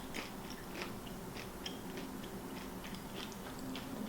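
Close-miked chewing of food, with soft irregular wet mouth clicks.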